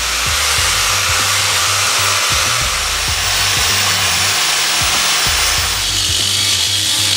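Angle grinder running against the steel frame of a car with a steady, loud hiss, grinding the surface down to bare metal to clear oil and dirt before welding. Background music with a steady beat plays underneath.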